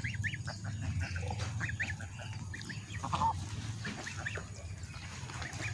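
A flock of white domestic geese foraging and giving scattered short, soft calls, with a couple of brief harsher honks, over a low steady rumble.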